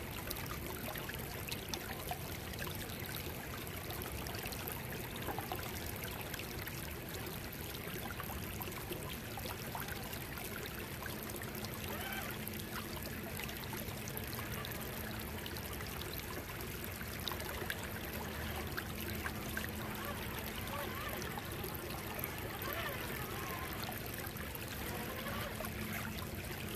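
Shallow creek water trickling and babbling over rocks, a steady rushing, with a faint steady hum joining it about eleven seconds in.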